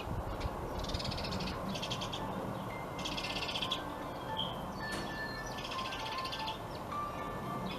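Birds giving four harsh, buzzy calls, each under a second long, over background music.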